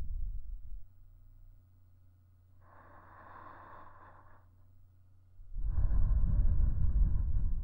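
Close-up breathing into a KU100 dummy-head microphone: a strong breath gusting against the mic with a low rumble fades out in the first second, a softer, airier breath comes in the middle, and another strong breath starts about two-thirds of the way through. A faint steady hum is left in the quiet gaps.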